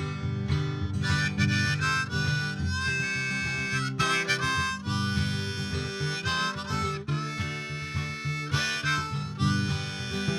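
Harmonica playing the melody in held notes over strummed acoustic guitar chords: an instrumental break in a folk song.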